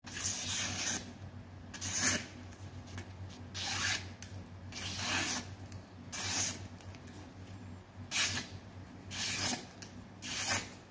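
Kitchen knife slicing through a hand-held sheet of paper again and again: about eight short papery, rasping cuts about a second apart, a sharpness test of the freshly restored blade.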